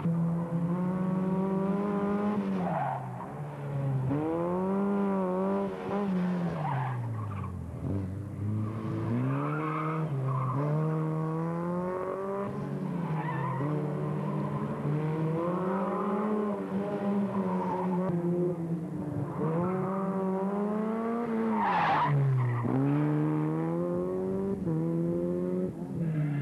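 Formula Ford single-seater racing car's engine revving hard and dropping back again and again as it is thrown through tight slalom turns between cones, with short bursts of tyre squeal.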